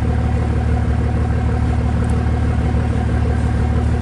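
Steady low engine rumble at an even level, like a vehicle engine idling.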